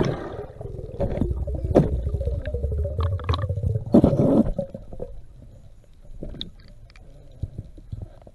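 Muffled underwater rumble and rushing picked up by a camera in its housing as a freediver hand-pulls along a descent line, with louder whooshing bursts at the start and about four seconds in. It quietens to faint clicks in the second half.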